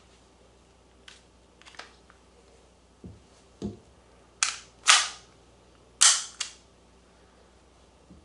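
Marzen Walther PPK gas-blowback airsoft pistol firing: four sharp cracks in two close pairs, each pair about half a second apart. Before them come a few faint clicks and two dull thuds.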